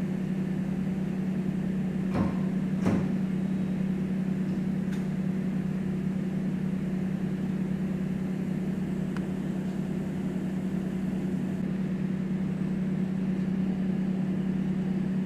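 Steady electric machine hum, one even low tone with no change in level, with two short clicks about two and three seconds in.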